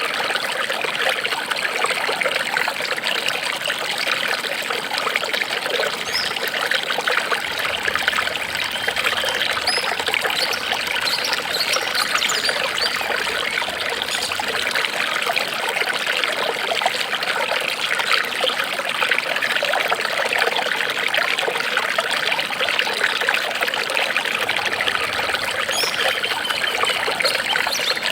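Running water trickling steadily, with no change in level.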